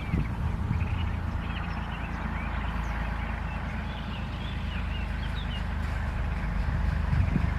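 River ambience: flowing water making a steady hiss over a constant low rumble, with small birds chirping in short, repeated calls.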